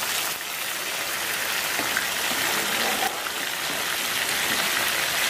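Pieces of snakehead fish frying in hot oil, sizzling: a steady hiss with the odd small pop.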